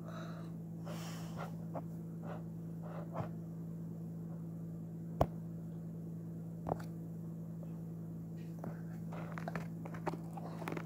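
A steady low hum with scattered faint clicks and taps: two sharper clicks about five and seven seconds in, and a quick run of small clicks near the end.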